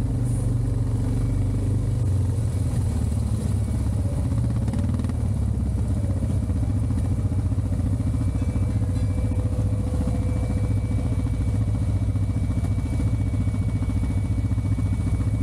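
An off-road vehicle's engine running steadily, with a faint high whine joining about halfway through.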